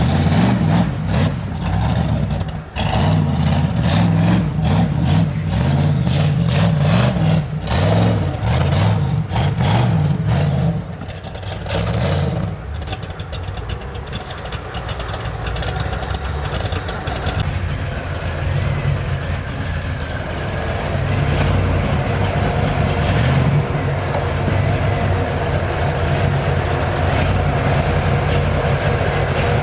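Rock-crawler 4x4 buggy's engine idling and revving unevenly as it works slowly over boulders. Knocks and clatter through roughly the first dozen seconds, then a steadier engine with a few rises in pitch later on.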